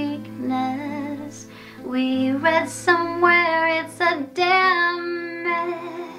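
A woman singing a song with acoustic guitar accompaniment, her voice moving through sung notes over steady held low notes.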